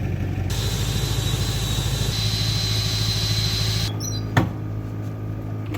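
Vehicle engine running with a steady low drone. For about three seconds a rushing hiss rides over it, and a single sharp knock comes near the end.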